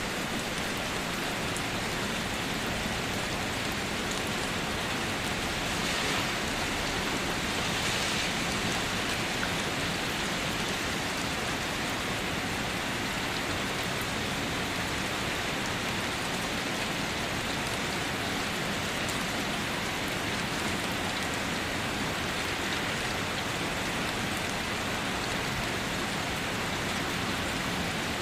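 Rain falling steadily, swelling a little for a few seconds about six seconds in.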